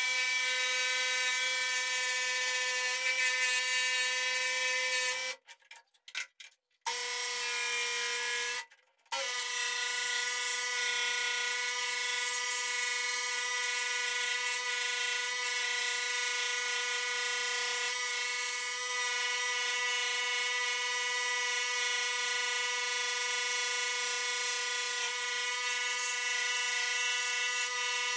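Electric scroll saw running steadily, its blade cutting a wooden board: an even, high-pitched motor whine over the rasp of the blade. The sound cuts out twice, for about a second and a half some five seconds in and briefly about nine seconds in.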